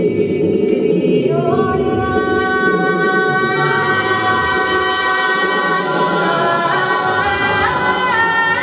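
Electronic music played live from a laptop: a dense low drone with layered, sustained choir-like tones that come in about a second in and step up in pitch near the end.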